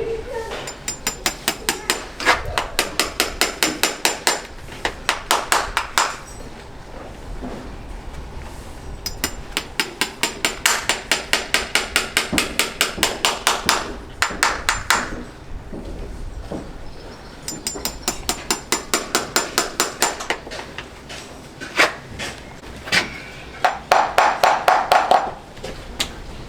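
Farrier's hammer striking metal in four quick runs of taps, about five a second, each strike ringing, with short pauses between the runs.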